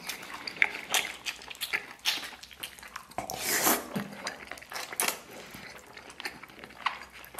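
A man biting into and chewing a soft, fatty slab of braised pork belly held in chopsticks: wet mouth sounds with many small clicks and smacks, and a few longer sucking swells.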